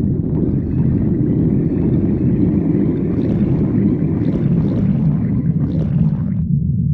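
Stomach growling: a continuous low rumble with a drawn-out gurgle over it. The gurgle has small crackling pops in its second half and stops suddenly near the end.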